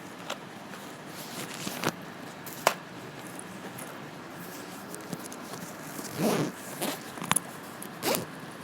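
A bag being unzipped and rummaged through: short zipper rasps, the longest about six seconds in and again near the end, among scattered clicks of plastic DVD cases being handled.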